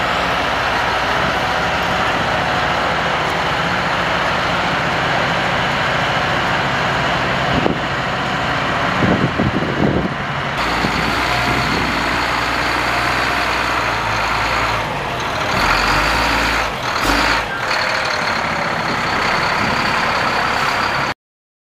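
Heavy military diesel trucks running close by, a steady loud engine rumble with a few brief louder surges and hisses in the second half. The sound cuts off suddenly just before the end.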